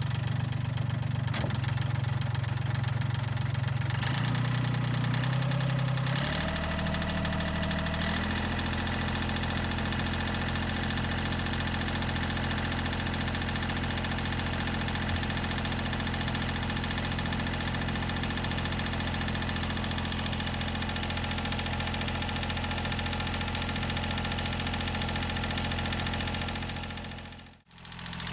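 A boat's inboard engine running; its pitch changes a few times in the first eight seconds, then it runs steadily.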